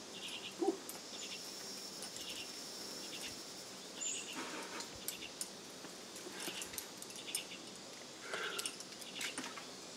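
Outdoor ambience of insects: short pulsed chirps repeating every second or so over a steady high drone, with a few brief lower animal calls, the clearest one near the end.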